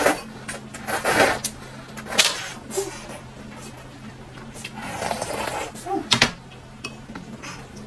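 Tableware being handled while eating: scattered sharp clicks and knocks, like chopsticks and spoons on bowls, with a few short scraping rustles. The loudest, a sharp click, comes about six seconds in.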